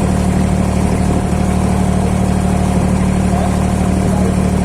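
Boat engine running at a steady speed: a constant low drone with a strong hum that does not change.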